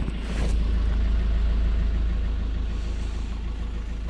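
Van driving, its engine and road rumble heard from inside the cab, swelling a little about half a second in and then easing off.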